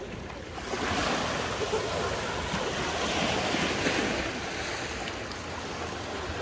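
Sea waves washing onto the shore: a rush of surf that swells about a second in and eases off after about four seconds, with wind on the microphone.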